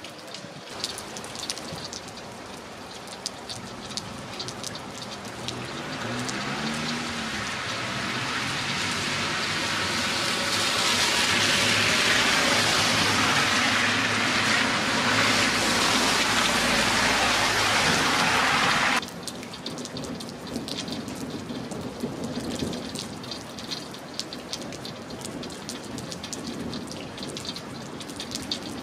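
Rain falling with many separate drop hits. About a third of the way in it builds into a heavy downpour, then drops off abruptly about two-thirds through to lighter rain and drips.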